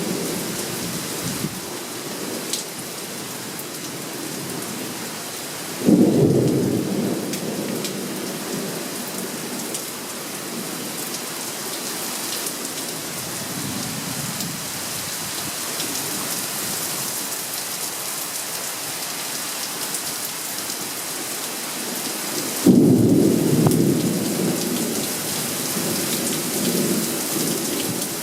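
Thunderstorm: steady heavy rain falling, with two sudden thunderclaps about six seconds in and again near the end, each rumbling away over a few seconds.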